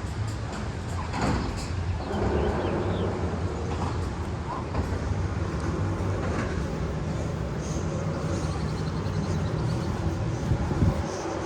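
Steady low, train-like rumble with scattered clicks and a faint held tone.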